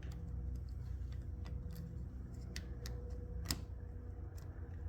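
Small scattered clicks and ticks of a thermostat wire being fitted into its terminal on the wiring base, with one sharper click about three and a half seconds in, over a faint steady hum.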